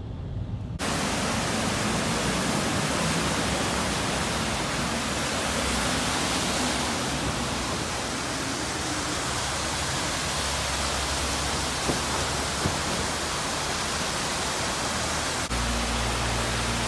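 Steady rushing hiss of heavy rain and floodwater running down a flooded street, with cars driving through the water and splashing. Near the end the sound changes suddenly and a louder low rumble comes in.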